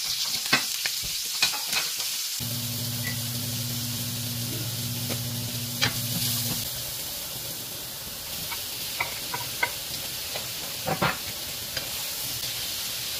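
Sliced onions sizzling in oil in a nonstick skillet, stirred with a wooden spatula that knocks and scrapes against the pan in scattered sharp clicks. A low steady hum comes in about two seconds in and stops about four seconds later.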